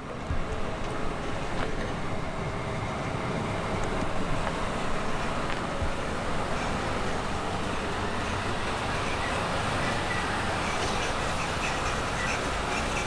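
Tsutsui Rikagaku GR145 basket-type extrusion granulator running, a steady continuous mechanical noise.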